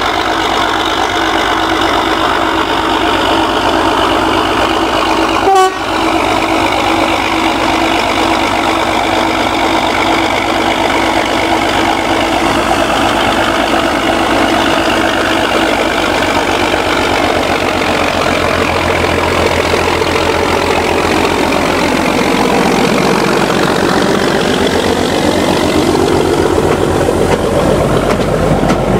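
Diesel shunting locomotive engine running steadily, with a brief click about six seconds in and the engine note shifting in pitch near the end.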